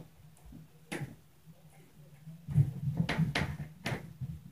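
Knocks and heavy thumps in an apartment, which the tenant takes for the upstairs neighbours stomping: one sharp knock about a second in, then a quick run of four or five knocks and thuds past the halfway mark, the first the loudest. A faint low hum sits under them.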